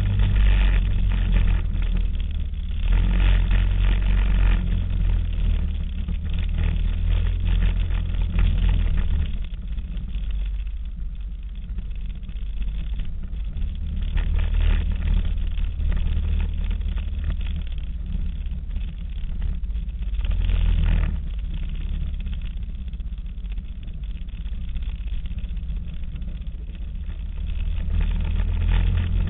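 ATV engine running on a downhill trail ride, the throttle swelling and easing off several times.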